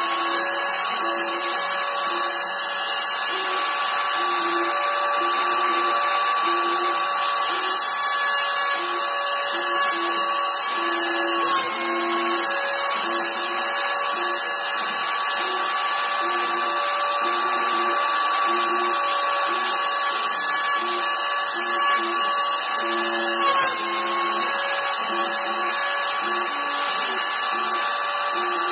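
CNC router spindle running with a steady high-pitched whine while milling, over a pulsing hum from the axis motors; the pitch dips briefly twice, about 12 and 24 seconds in.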